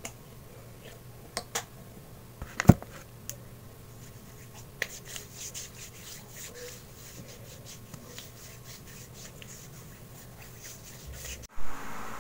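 A few sharp clicks from handling a plastic lotion bottle, the loudest about three seconds in, then hands rubbing lotion into the skin of the arm with soft, repeated swishing. A short thump comes near the end.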